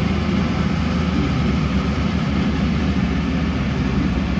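Shantui motor grader's diesel engine running steadily under load while it levels gravel, a deep continuous rumble.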